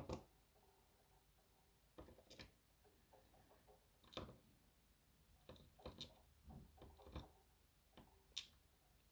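Faint, scattered clicks and taps of small lock cylinder pins being set down and arranged by hand on a hard surface.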